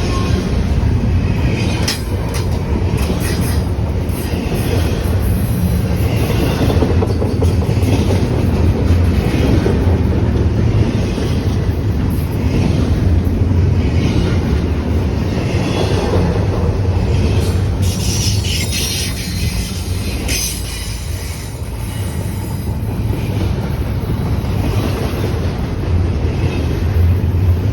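Freight cars of a BNSF intermodal train rolling past steadily, with a low rumble, wheels clicking over rail joints and occasional high-pitched wheel squeal.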